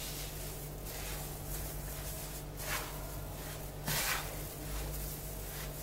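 Hands rubbing and turning crumbly semolina dough, mixed with butter and margarine and dampened, in a large bowl: a soft gritty rustle, with a couple of louder scrapes about two and a half and four seconds in. The dough is being worked until it begins to clump. A faint steady hum runs underneath.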